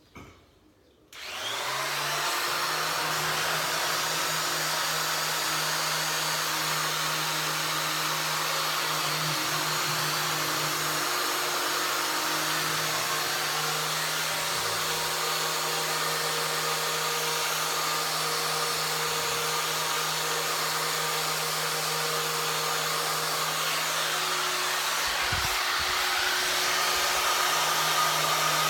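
Vacuum cleaner motor starting about a second in, its pitch rising briefly as it spins up, then running steadily.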